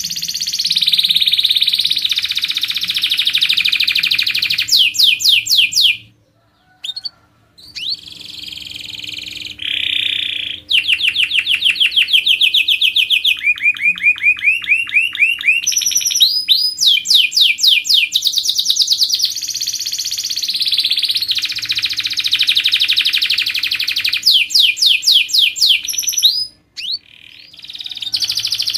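Domestic canary singing a long, loud song of tight rolls (fast trills of rapid repeated notes) mixed with chirps. It breaks off briefly about six seconds in and again near the end.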